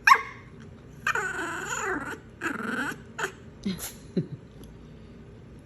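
Mini bichon dog vocalizing to beg for bread: a sharp yip, then two drawn-out whining cries that bend up and down in pitch like an attempt at talking, and a few short falling whimpers.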